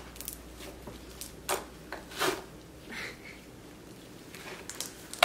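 Glossy glue slime being poked, pressed and stretched by hand, giving scattered sticky clicks and pops, with a sharper, louder pop at the very end.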